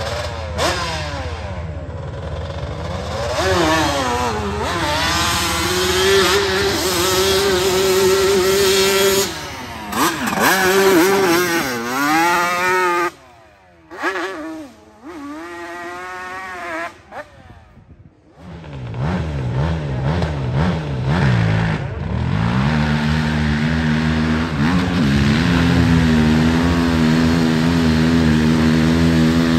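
Sport ATV engines at full throttle on a hillclimb, revving up and down as the quads launch and climb loose dirt. The engine sound drops away briefly twice near the middle, then rises again and is held at high revs through the last several seconds.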